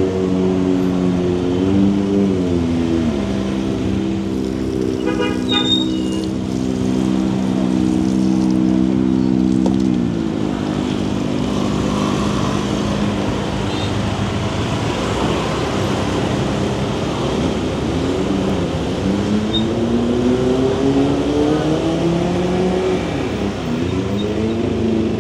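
Motor scooter engine running on the move with road and traffic noise. Its pitch holds steady, drops about ten seconds in as it slows, then climbs again near the end as it speeds up.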